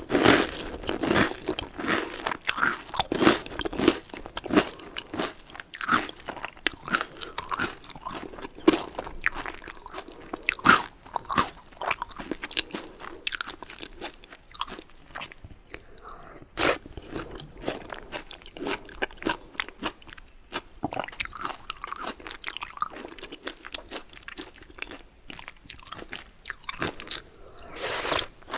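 Close-miked eating of baguette and vegetable soup: steady chewing with many irregular crunches and bites.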